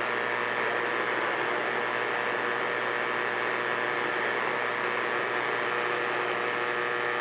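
CB radio receiver static from the speaker on an open channel between transmissions: a steady hiss with a faint steady tone mixed in.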